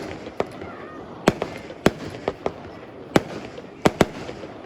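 Fireworks display: a rapid series of sharp bangs from bursting shells, about two a second, over continuous crackling.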